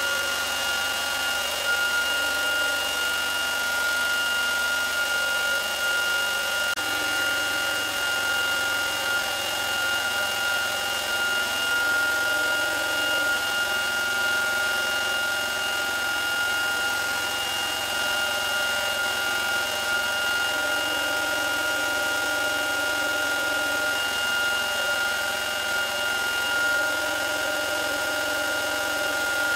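Tuxing 300 bar mini PCP air compressor running steadily with a constant whine, pumping high-pressure air into an empty rifle air cylinder during a fill toward 180 bar.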